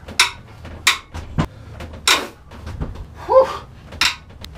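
Wrench and steel parts clanking against an old six-cylinder marine engine block as its main bearing caps are unbolted: a string of sharp metal knocks, with a short rising squeak about three seconds in.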